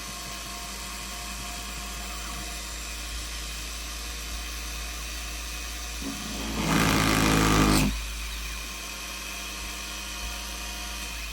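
Unimat mini CNC machine running a drilling program: the motors hum steadily with a few held tones, then a louder, rougher stretch of about two seconds, a little past the middle, as the bit plunges into the workpiece.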